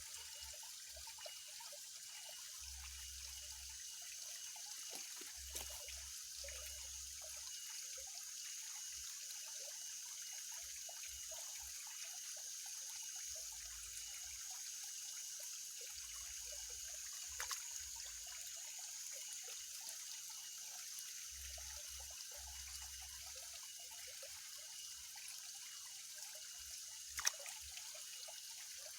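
Steady, faint trickle of water with a high hiss, broken by a few sharp clicks, the loudest near the end.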